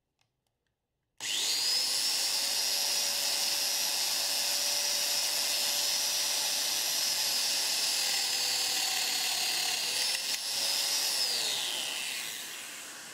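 Festool Domino joiner motor starting about a second in with a quickly rising whine, running at a steady high whine for about ten seconds as it cuts a mortise for a loose tenon, then switched off and winding down in pitch near the end.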